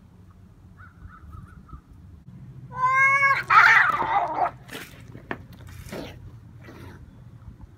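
Two cats fighting: a faint drawn-out cry about a second in, then a loud yowl about three seconds in that breaks straight into a second-long burst of hissing and spitting as they clash, followed by a few short sharp hisses.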